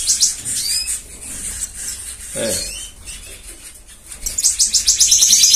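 Small caged finches calling: a few short, quick chirps, then a fast high-pitched twittering trill over the last second or so.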